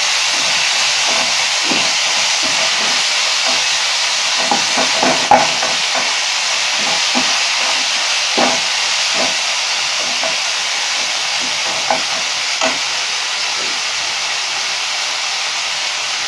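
Sliced onions and capsicum sizzling in hot oil in a pan, with a steady hiss. A spoon stirring them knocks against the pan now and then, the sharpest knock about five seconds in.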